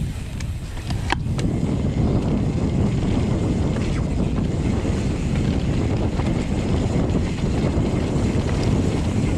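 Wind buffeting the microphone and knobby tyres rolling over a dirt trail as a mountain bike descends at speed. The rush builds up about a second in, just after a sharp click.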